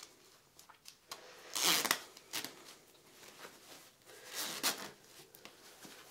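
Metal zipper on a dark grey fleece hoodie being engaged and zipped up, in a few short rasps, the loudest just under two seconds in and another around four and a half seconds, with fabric rustling and small clicks between.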